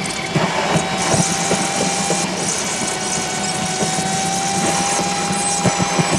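A machine running steadily with a high whine that slowly creeps up in pitch over a low hum, with a few sharp clicks and knocks.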